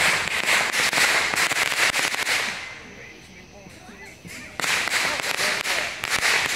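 Fountain firework hissing with rapid crackling. It dies down for about two seconds in the middle, then the hiss and crackle start up again suddenly.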